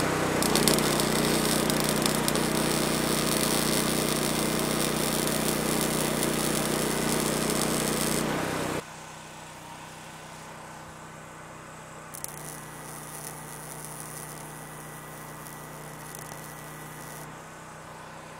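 Wire-feed (MIG) welder crackling and sizzling as it lays welds on steel drum halves, over the steady hum of the machine. The first stretch of welding is loud and stops abruptly about 9 seconds in; a second, quieter weld crackles from about 12 to 17 seconds.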